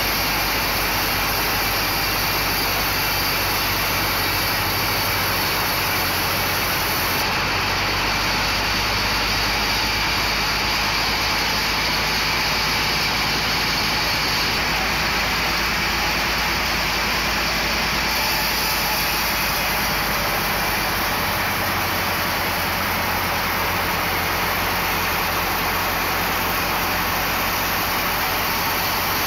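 Large vertical band sawmill running and sawing along a teak log: a loud, steady, even noise of blade and machinery with a low hum underneath, unchanging throughout.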